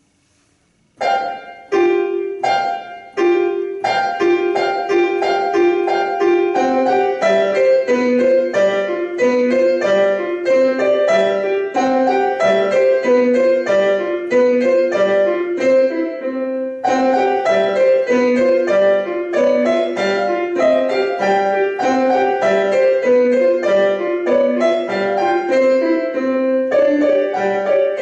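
Piano duet playing a children's piece: a few separate chords begin about a second in, then a steady run of short notes over a bouncing lower part, with a short break a little past the middle.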